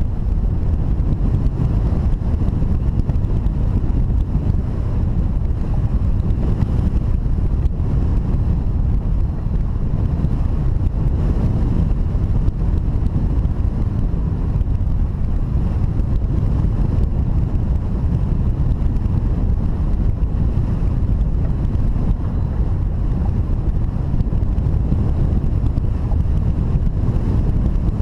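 Steady, loud wind rumble on the microphone, a low continuous roar of moving air with no breaks.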